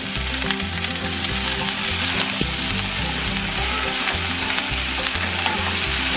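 Wet broccoli florets sizzling in hot olive oil in a frying pan: a loud, steady frying hiss with water spitting in the oil.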